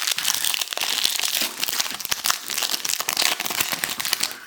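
Foil trading-card pack wrapper crinkling as it is handled, a dense run of small crackles.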